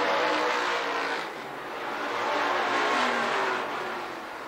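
Stock cars racing past on a short oval, engines at speed. The sound swells twice, about three seconds apart, and the engine pitch drops as each group goes by.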